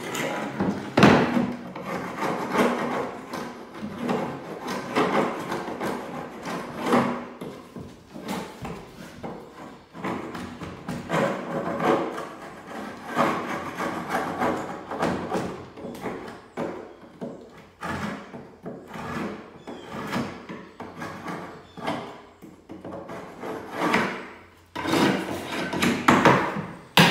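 Hand scraper scraping along a wooden window sash frame in repeated strokes of uneven pace, cleaning old residue out of the frame where the broken glass was removed.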